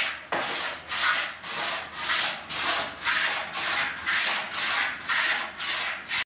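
Hand plane shaving the curved paulownia soundboard of a gayageum: quick rasping strokes, about two a second, each peeling off a curl of wood. The strokes stop abruptly near the end.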